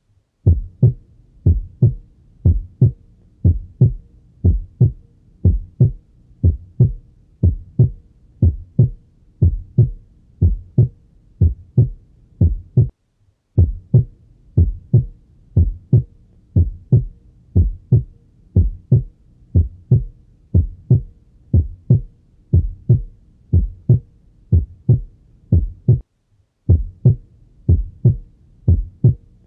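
Normal heart sounds heard through a stethoscope: a regular lub-dub, the first and second heart sounds in pairs, at about 70 beats a minute. The beat drops out briefly twice, about 13 and 26 seconds in.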